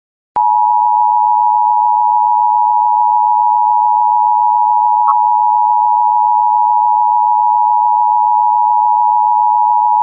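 Emergency Alert System two-tone attention signal, 853 and 960 Hz sounded together, starting abruptly about a third of a second in after a short silence. It then holds as one steady, harsh, unwavering tone.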